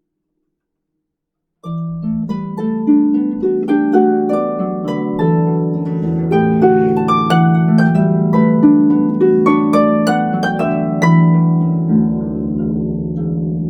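Solo harp: after about a second and a half of silence it comes in suddenly and loudly, then plays a quick, dense stream of plucked notes over ringing low bass notes.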